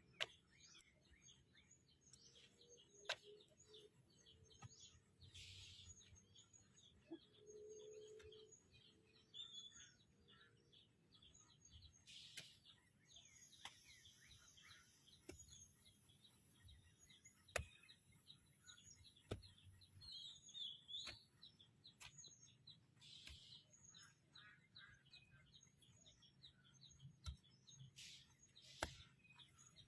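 Faint, scattered bird chirps, with a few sharp clicks or taps now and then.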